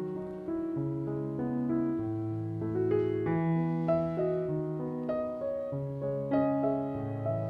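Background music: soft piano playing a slow melody over held chords.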